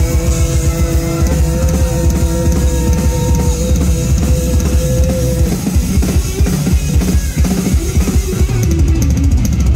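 Live rock band playing loud with drum kit and electric guitar, no vocals: held notes ring over heavy kick and drums for the first half, then the drums and guitar carry on in a busier instrumental passage.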